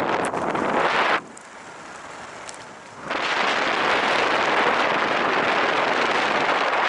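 Wind buffeting the microphone of a camera on a moving bicycle, a loud rushing noise. It drops away suddenly about a second in and comes back about two seconds later.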